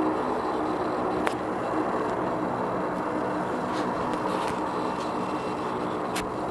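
An engine idling steadily, an even low hum, with two short sharp clicks, one about a second in and one near the end.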